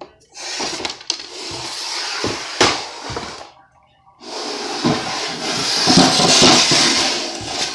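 Scraping and rubbing noise with a few sharp knocks, in two long stretches broken by a short pause about three and a half seconds in.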